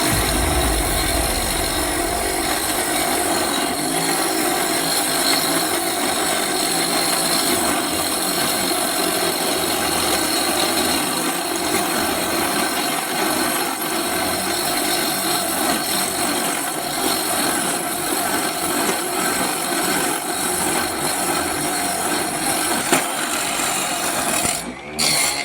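Homemade table saw driven by a 775 DC motor, running steadily with a high whine as its blade cuts through wood, dipping briefly near the end.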